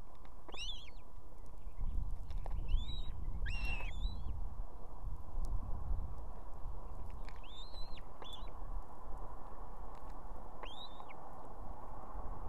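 Osprey calling at the nest: short high calls, each rising then falling in pitch, repeated every second or few seconds. There is a low rumble underneath for a few seconds in the middle.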